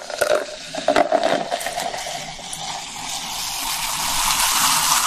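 A drink is poured from a plastic bottle into a glass, picked up close by the microphones. It is a steady, noisy pour that climbs in pitch and grows louder as the glass fills, with a few small clicks at the start.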